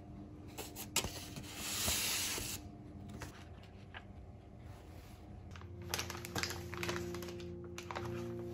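Paper crinkling and rustling as a paper bag and recipe sheet are handled, with a louder rustle about two seconds in and a run of crackles later on, over soft background music with held notes.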